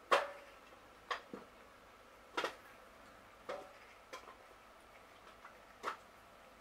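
Cats eating from a small dish on a concrete floor: about seven irregular sharp clicks and clinks against the dish, the loudest right at the start.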